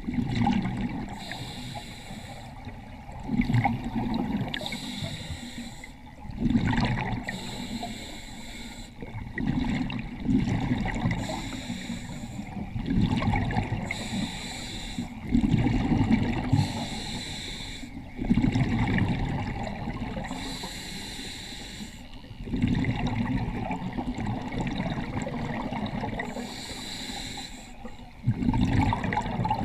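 Scuba diver breathing through a regulator underwater: a hissing inhale followed by a bubbling exhale, repeated about eight times at an even pace.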